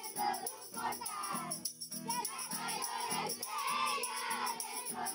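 A group of children singing a Christmas carol (villancico) together to a strummed acoustic guitar, with a steady rhythmic beat.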